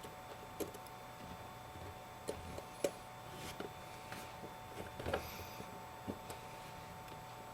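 Faint, scattered clicks and ticks of tiny screws and a precision screwdriver being handled and driven into the metal shield plate inside an iPhone 5, over a steady faint hum.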